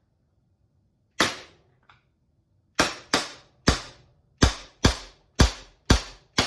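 Elite Force Glock 17 Gen 5 gas blowback airsoft pistol firing: one sharp shot about a second in, then after a pause a quick string of eight shots, roughly two a second, each crack with the slide's blowback clack.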